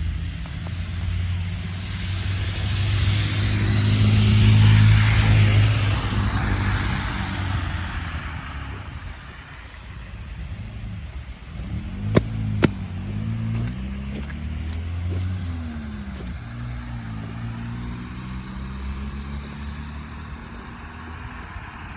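A car passes close by, its engine and tyres loudest about four to five seconds in and then fading. Two sharp clicks follow near the middle, with another vehicle's engine note rising and falling after them.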